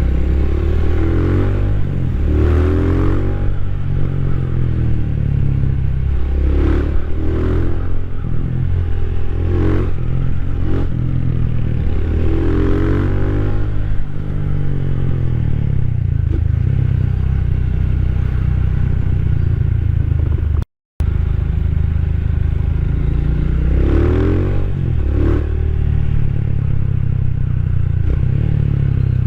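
Rusi Classic 250's LX166FMM single-cylinder engine running while riding, its pitch rising and falling several times as the throttle opens and closes, with a few light clatters. The sound cuts out briefly about two-thirds of the way through.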